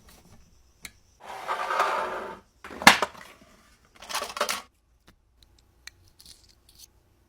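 Hand-work noises on the workbench: a rasping scrape lasting about a second, a sharp click, a second shorter scrape, then a few light ticks.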